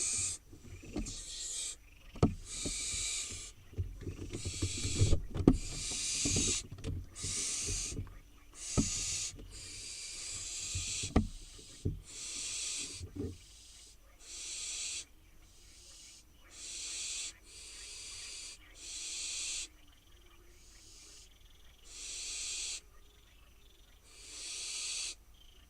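Barn owl fledglings giving their hissing, snoring begging calls, one rasping hiss about every second. These are the food-begging calls of young barn owls waiting to be fed. Through the first half come low scuffs and a few sharp knocks, which stop about halfway through.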